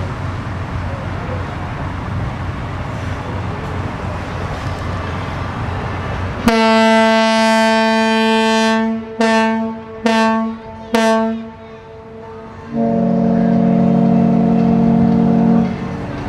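Loud horn blasts: one long blast about six seconds in, then three short blasts, then a lower long blast near the end.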